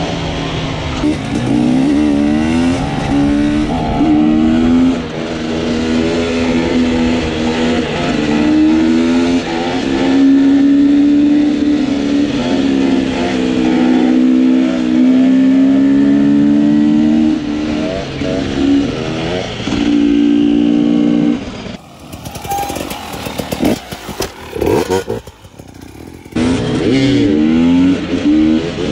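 Dirt bike engines revving up and down, the pitch rising and falling with the throttle as the riders hold wheelies. About three-quarters of the way through, the engine sound drops away and breaks up for a few seconds, then comes back.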